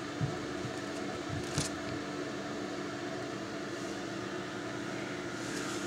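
Steady mechanical hum with a low drone, with two soft knocks, one just after the start and one about a second and a half in.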